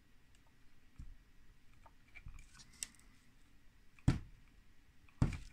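Faint clicks and two sharper knocks, about four and five seconds in, from the plastic front frame and drum of a 3D-printed RC road compactor being pressed down by hand to flex the front pivot and let back up.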